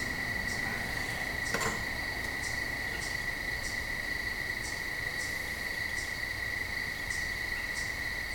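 Crickets chirping steadily in a continuous high trill, with faint regular chirps about twice a second. A single light knock about one and a half seconds in.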